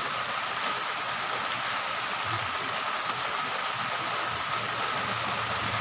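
Steady hiss of rain falling, with a faint steady high tone running underneath.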